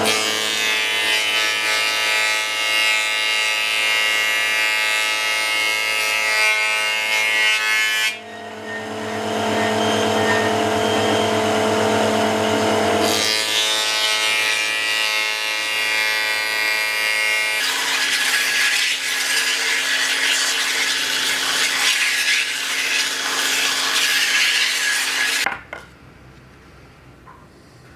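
Electric power tool running under load, its motor note shifting several times, then switched off abruptly near the end.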